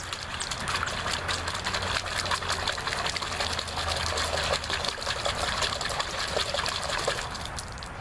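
Water splashing and spilling as a hand sloshes it out of a cut-off 2-liter-bottle drinking cup, a busy wet splashing that stops about seven seconds in.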